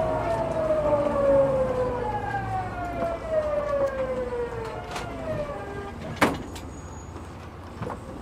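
Tokyu 9000 series electric train's VVVF inverter whining inside the car, falling steadily in pitch as the train brakes and slows, and fading out about five and a half seconds in. A single sharp click follows about six seconds in.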